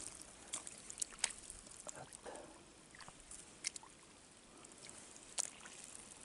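Spring water trickling down a narrow channel in the grass, with scattered sharp ticks and little splashes.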